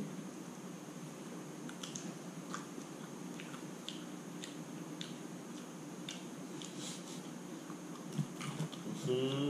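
Faint, scattered clicks and crackles of fresh green lotus seeds being pried out of the pod and peeled by hand, then chewed, over a steady low room hum. A brief voiced sound rises near the end.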